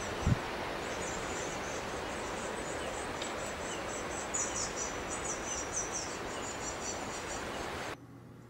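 Blue tit nestlings giving thin, high begging calls in quick, repeated chirps over a steady hiss. It all cuts off abruptly near the end.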